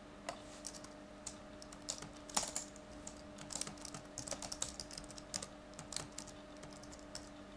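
Typing on a computer keyboard: irregular key clicks, some in quick runs, over a faint steady hum.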